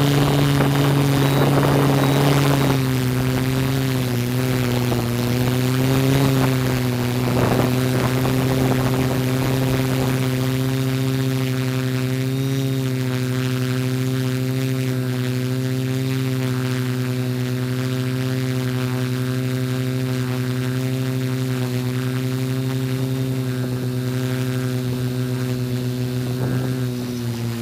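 Multirotor camera drone's motors and propellers humming at one pitch with evenly spaced overtones, the pitch wavering a little over the first several seconds and then holding steady. Brief rushes of noise come near the start and again about seven seconds in.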